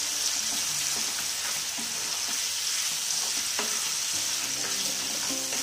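Chicken pieces sizzling in hot oil in a non-stick kadai while a plastic spatula stirs them, with a steady frying hiss and a few light knocks of the spatula against the pan.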